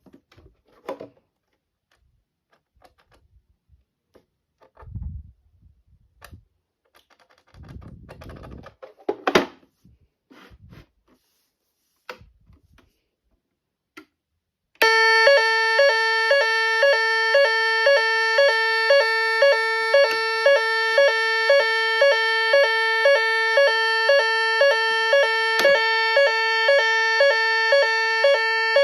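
Ura Type 4 autonomous fire alarm sounder (BAAS) sounding its evacuation alarm: a loud pulsing tone that repeats about twice a second. It starts about halfway in, after a few faint clicks and knocks.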